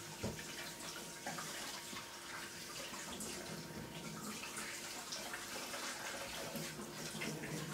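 Kitchen tap running steadily onto a young sea bream held in a stainless steel sink, the water splashing as hands rub and rinse the fish.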